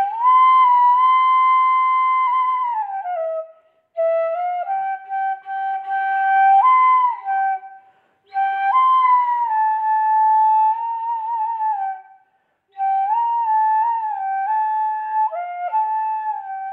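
Solo flute playing a slow melody in four phrases of long held notes, some gliding down in pitch, with short pauses between the phrases.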